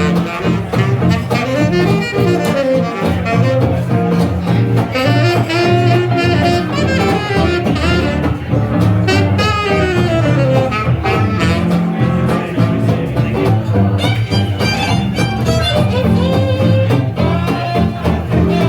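Live jazz band playing: a horn carries the melody over upright bass and a steady rhythm section.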